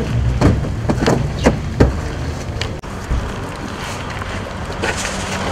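A few sharp knocks and clicks in the first two seconds over a steady low rumble.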